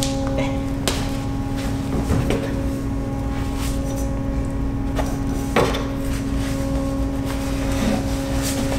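Mazda Miata's four-cylinder engine running steadily at an even pitch, with a few short knocks and clatters from the stripped car's body.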